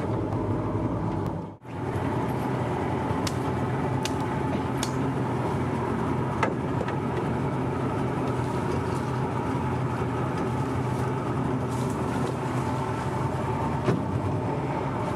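Outboard motor on a small boat running steadily under way. The sound cuts out for a moment about a second and a half in.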